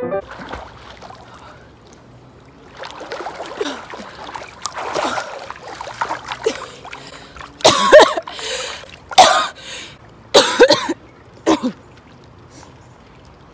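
A person coughing in short, loud bursts, four of them in the second half, over soft water sounds at the edge of a swimming pool.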